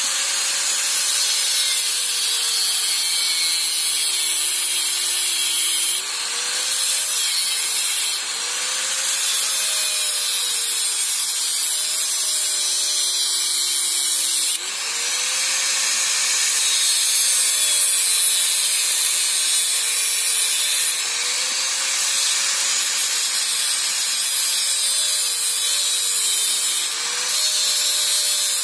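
Electric angle grinder cutting through a metal pipe without pause. The motor's whine sags in pitch as the disc bites under load and jumps back up each time the load eases, about five times.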